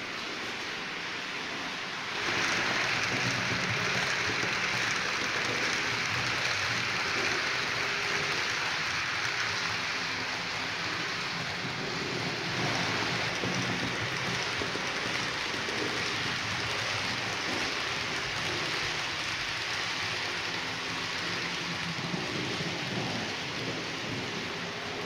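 H0-scale model freight train of tank wagons rolling along the layout's track: a steady hiss of the wheels on the rails, with a faint low hum beneath. It gets louder about two seconds in.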